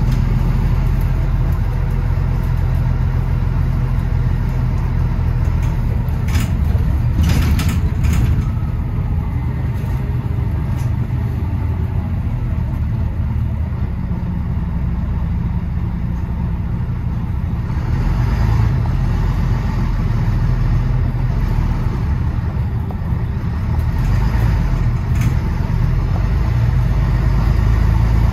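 A London bus's engine running with a steady low drone as the bus drives along. A few short clicks or rattles come about six to eight seconds in.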